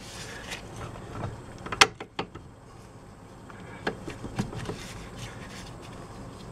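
A few light metallic clicks and scrapes as a bolt and a pry screwdriver shift against the rusty strut bracket and steering knuckle while the bolt holes are worked into line against the spring's pressure. The sharpest click comes a little under two seconds in.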